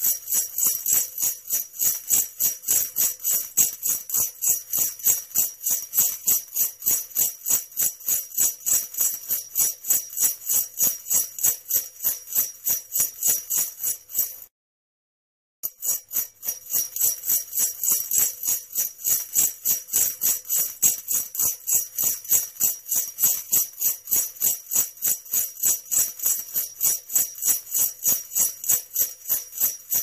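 Sleigh bells jingling in a steady shaking rhythm of about four shakes a second. The jingling cuts out completely for about a second halfway through, then picks up again.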